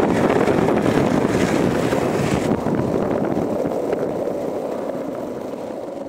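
Longboard's urethane wheels rolling over pavement: a steady rumble that grows gradually quieter toward the end.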